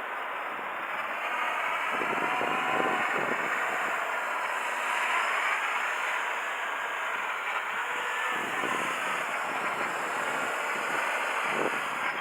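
Electric motors and rotors of a radio-controlled aircraft whining as it flies, the pitch shifting up and down several times with changes in throttle, with strong wind buffeting the microphone.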